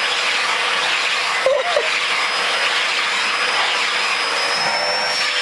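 Vacuum cleaner running steadily, a loud rush of air with a thin high whine, as its brush nozzle is drawn over a cat's fur.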